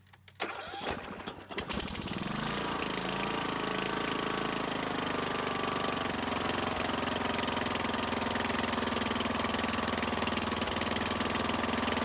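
Freshly rebuilt Kohler Courage 20 hp small engine starting: a second or so of cranking and uneven firing, then it catches and settles into a steady, even run at low throttle.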